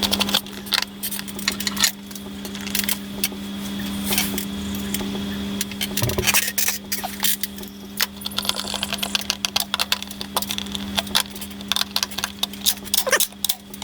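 Small metal hardware and hand tools clinking and tapping, many sharp clicks at irregular moments, over a steady low hum.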